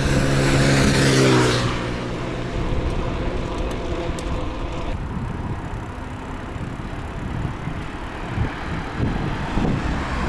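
A car passes close by, its engine hum and tyre noise fading out within about two seconds, followed by a steady rush of wind and road noise.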